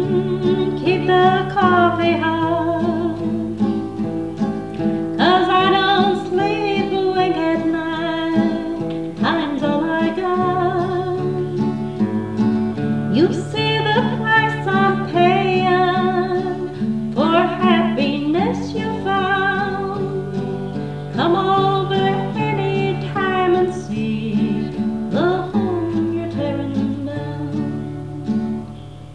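A woman singing a country song with vibrato, accompanied by a guitar.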